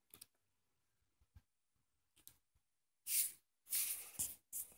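Close rustling and rubbing handling noise as the filming phone is moved about: a few soft clicks at first, then several loud rustling bursts in the last two seconds.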